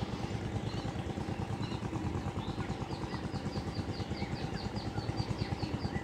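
An engine running steadily with a rapid low chugging. From about two and a half seconds in, a quick series of short, high chirps repeats about four times a second.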